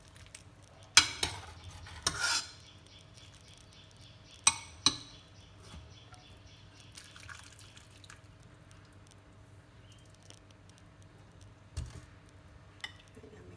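Metal ladle clinking against a stainless-steel pot and a ceramic bowl as soup is ladled out: four sharp clinks in the first five seconds, then a quiet stretch and a couple of lighter knocks near the end.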